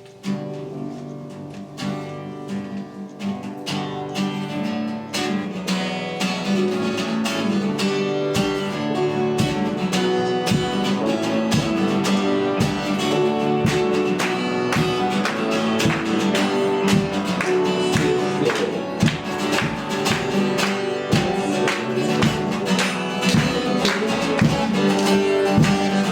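Live worship band starting a song, led by guitar. A steady beat comes in after a couple of seconds and the music builds fuller from about eight seconds in.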